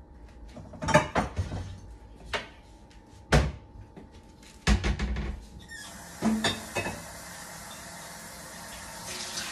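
Wooden kitchen cabinet doors opened and shut, with sharp knocks and clatters as cookware is handled. About six seconds in, a steady hiss of a kitchen faucet running begins.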